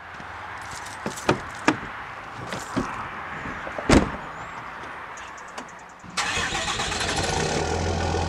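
A few sharp knocks and a heavier thump, then a pickup truck's engine starting suddenly about six seconds in and running steadily.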